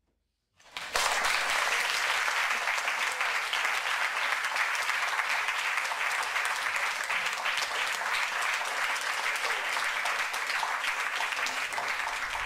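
Audience applauding: dense, steady clapping that starts suddenly about a second in after a brief silence.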